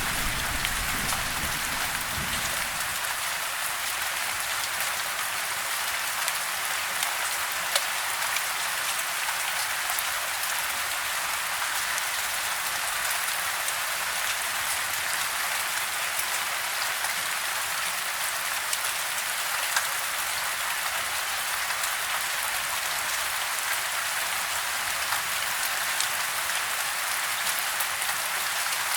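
Steady rain falling, an even hiss with scattered sharp drop ticks. A low rumble of fading thunder dies away in the first couple of seconds.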